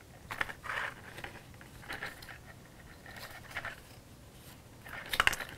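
Cardstock being handled and pressed together: faint scattered rustles and taps of paper, with a few sharper clicks near the end.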